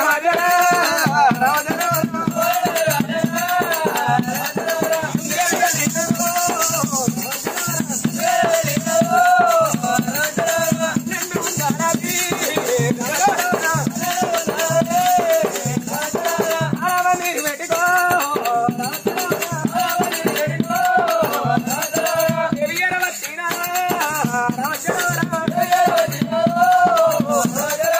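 Oggu katha folk music: a sung melody over fast, continuous jingling and rattling percussion.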